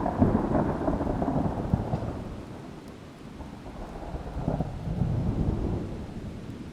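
Thunder rumbling over steady rain: a crack and rolling peal at the start that dies away, then a second rolling swell about four seconds in.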